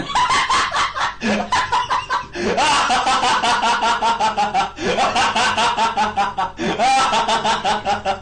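Hard, high-pitched laughter used as a sound effect: about four fits of rapid 'ha-ha-ha' pulses, each opening with a rising note.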